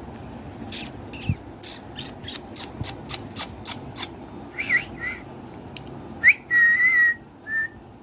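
A quick run of sharp kissing clicks, about three a second, then short chirping whistles, a rising whistle and a steady held whistle note, ending with one short note; the sounds a person makes to call and coax a pet parakeet.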